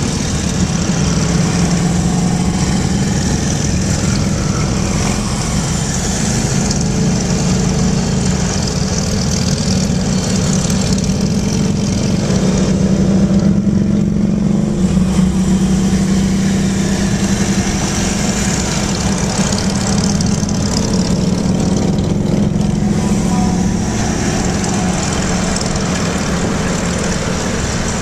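Steady engine and road noise at highway speed, heard from inside a car driving among a large pack of cruiser motorcycles.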